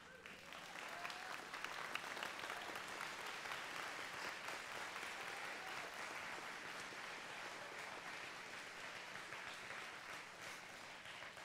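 Audience applauding: it starts suddenly, is fullest in the first couple of seconds, then slowly dies down near the end.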